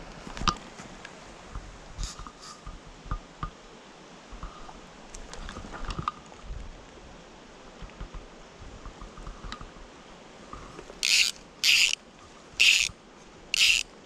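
Footsteps crunching through dry leaf litter and twigs, then the click drag of a fly reel buzzing four times in quick succession near the end as fly line is pulled off it.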